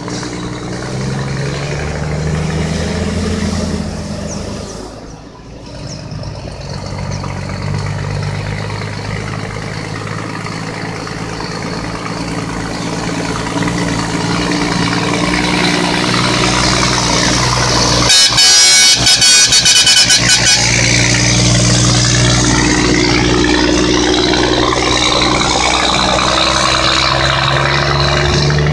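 Heavy Scania diesel trucks pulling away under load, their engines running hard and rising in pitch as they accelerate. About two-thirds of the way through comes a very loud run of rapid air-horn blasts.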